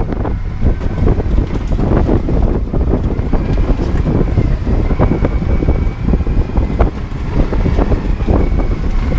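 Zetor 7011 tractor's diesel engine running while driving, with frequent rattles and knocks and wind buffeting the microphone.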